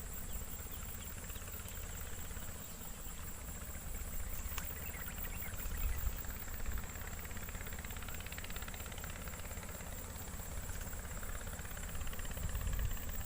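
Outdoor ambience: steady high-pitched insect buzzing over a low rumble of wind or handling on the microphone, with one sharp click about four and a half seconds in.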